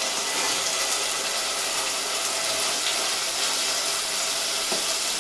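Chopped tomato and green chilli sizzling steadily in hot oil in a steel pot, with a steel ladle stirring them toward the end.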